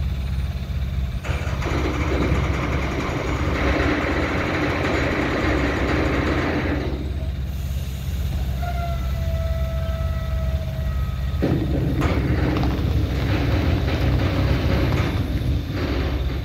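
Heavy-haulage truck hauling an abnormal-load trailer, its diesel engine running with a steady low hum. Long hissing rushes of noise come and go over it, and a brief high squeal with a slightly falling pitch sounds about halfway through.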